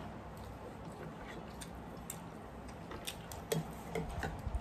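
Close-up eating sounds: small scattered mouth clicks and smacks of chewing. Near the end come a few louder clicks, from a spoon tapping a ceramic bowl of chana.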